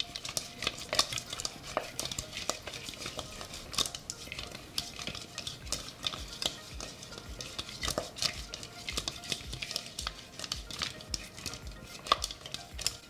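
Sauce-glazed chicken wings being tossed in a mixing bowl: a steady run of irregular soft knocks and clatter as the wings tumble against the bowl and each other, with a few louder knocks along the way.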